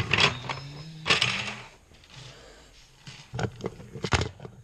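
Plastic toys being handled and pushed about on a hard floor, clicking and knocking. Several sharp clicks come in a quick cluster a little past three seconds in.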